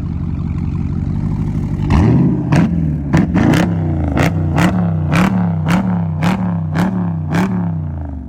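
SRT Jeep's 6.4-litre HEMI V8 through a modified, louder exhaust: idling for about two seconds, then blipped hard over and over, about twice a second. Each rev rises and falls with a sharp crack, and the revving eases off near the end; barking.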